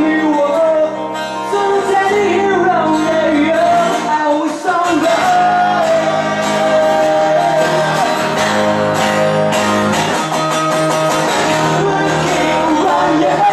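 Live acoustic band playing a song: male voices singing over two strummed acoustic guitars and a bass guitar.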